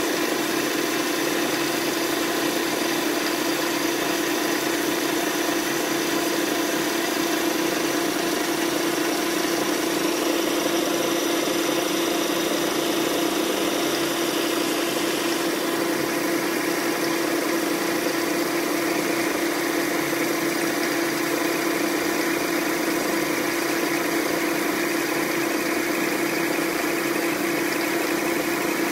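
Small 180x300 benchtop metal lathe running steadily under power, its motor and gear train giving a constant hum with higher whining tones, while the tool feeds along a long taper being turned between centres. About halfway through the higher part of the sound changes, the top hiss dropping away and a higher whine coming up.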